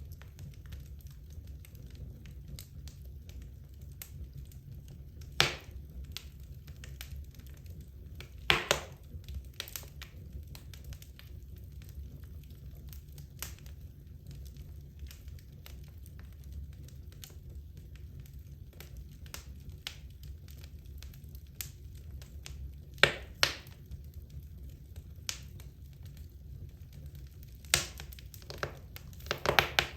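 Wood logs burning in a fireplace, crackling with scattered small snaps and about half a dozen louder sharp pops, over a low steady rumble.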